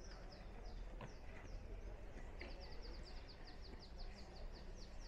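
A small songbird singing: short falling chirps, a few at first, then about halfway through a fast run of them at roughly seven notes a second.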